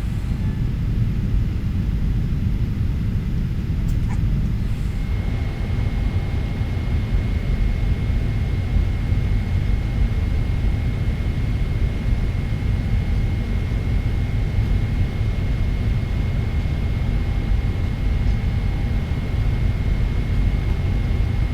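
Boeing 777-300ER's GE90 jet engines running, heard inside the cabin as a steady low rumble; a thin steady high whine sets in about five seconds in.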